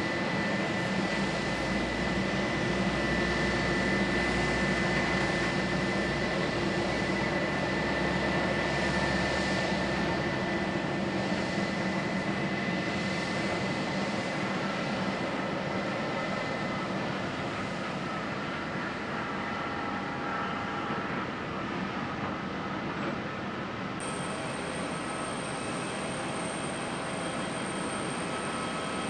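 Jet airliner engines running with a steady whine, loudest about four seconds in and then easing off; near the end a thin high whine joins in.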